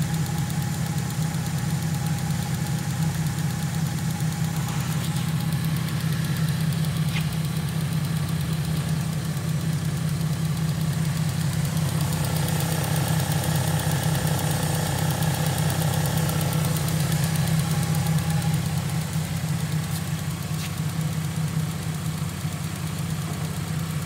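Holden Commodore 3.6-litre V6 engine idling steadily, heard up close in the open engine bay.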